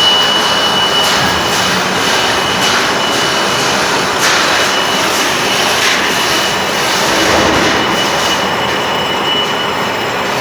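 Metal lathe cutting a workpiece: a loud, rough, continuous machining noise with a steady high-pitched whine that fades near the end.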